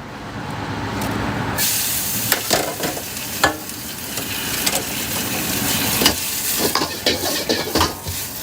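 Fried rice being stir-fried: a sizzle starts suddenly about one and a half seconds in and runs on steadily, with the spatula now and then clanking and scraping against the pan.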